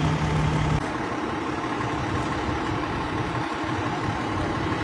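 Fire truck's diesel engine idling, a steady low running sound; the low hum drops out about a second in, leaving a dense rumble.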